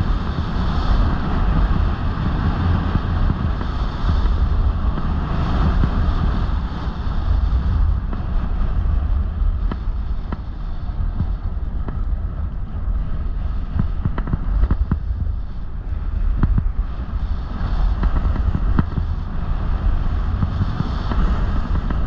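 Wind rushing over the camera microphone as a snowboard slides and carves down a groomed slope, the board's edge hissing and scraping over the snow. A few short ticks and knocks from the board come in the middle stretch.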